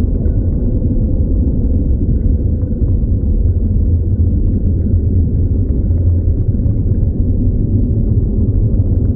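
Dark ambient drone: a deep, steady low rumble with a faint sustained tone held above it, without beat or drums.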